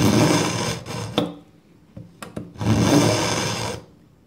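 Kitchen knife blade pulled through an AnySharp tungsten-carbide pull-through sharpener: two scraping strokes of metal on carbide, each about a second long, with a few light clicks between them.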